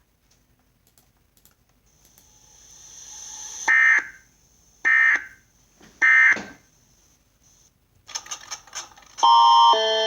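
Emergency Alert System end-of-message signal: three short, loud bursts of buzzy digital data tones about a second apart, after a rising hiss. Near the end a loud sequence of steady electronic tones starts.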